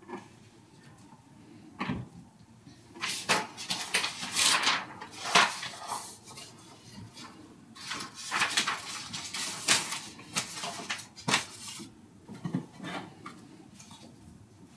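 Irregular clatter and knocks of objects being handled, with short rustling bursts, busiest in the middle.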